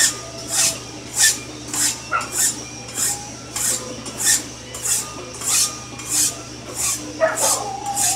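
Hand file rasping in long, even strokes across the edge of a steel blade held in a vise, about one and a half to two strokes a second. The bulk of the metal is being taken off the edge while the steel is still soft, before heat treating.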